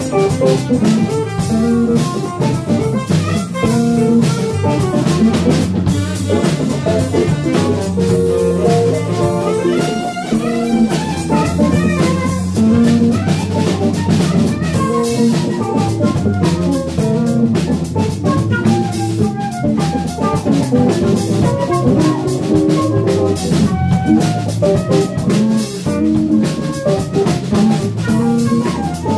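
Live band playing an instrumental jam: drum kit, Fender electric bass, guitar and saxophone, with no singing.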